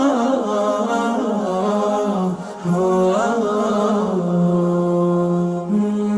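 A cappella Islamic nasheed: a male voice sings a wordless melody with no instruments, gliding between pitches and holding long notes. The singing dips briefly about two and a half seconds in.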